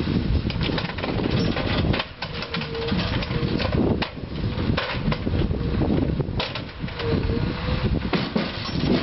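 Log truck's loader crane at work: the diesel engine runs with a steady low rumble under a faint hydraulic whine that bends in pitch twice, and sharp knocks come now and then as the grapple handles logs.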